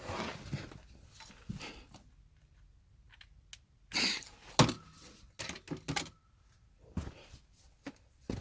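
Irregular clicks and clacks of stock being shifted on a shelf while searching, with a quiet pause and then a few louder knocks about four seconds in.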